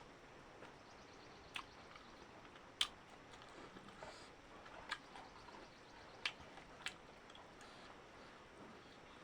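A person eating close to the microphone: quiet chewing broken by a handful of sharp, wet mouth clicks and smacks, the loudest about three seconds in.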